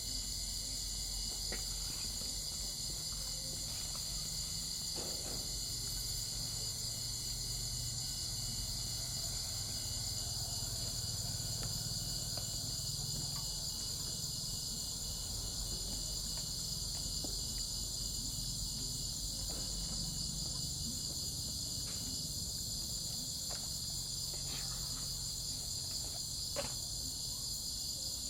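Crickets chirping continuously in a steady high-pitched trill, with a few faint clicks and one sharper click near the end.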